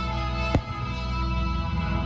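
Background music with a steady, sustained instrumental sound, broken about half a second in by a single sharp crack.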